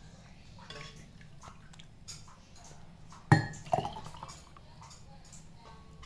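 Thick nut milk poured from a metal pan into a glass mug: soft pouring and dripping, with a sharp clink of metal on glass a little over three seconds in and a smaller one just after.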